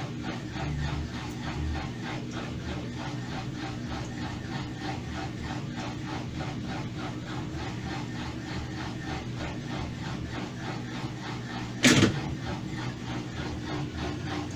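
Mabe washing machine running its spin cycle with a steady mechanical noise and a fast, even rattle from the transmission, which the technician takes as a sign of badly worn, rusted transmission bearings. One sharp loud knock about twelve seconds in.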